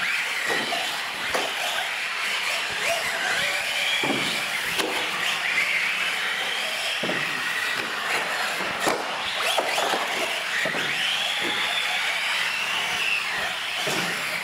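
Radio-controlled UTV trucks racing, their motors whining and rising and falling in pitch with the throttle, with several short knocks spread through.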